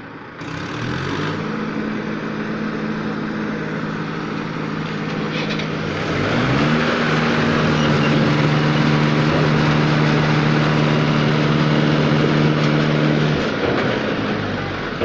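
Diesel tractor engines revving hard under load while one tractor pulls a stuck tractor free. The engine note climbs and gets louder about halfway through, holds high for several seconds, then drops away near the end.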